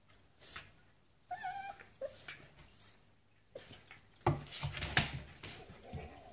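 A border collie and a cat play fighting: two short high cries early on, then a loud flurry of scuffling and thumps from paws and bodies on a wooden desk about four seconds in.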